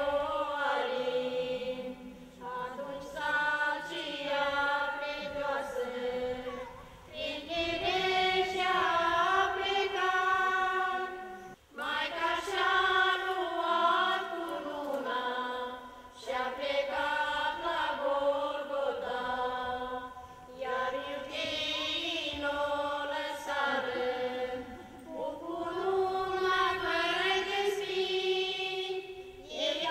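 Folk choir of mostly women's voices singing together in long phrases of about four to five seconds, with short breaks for breath between them.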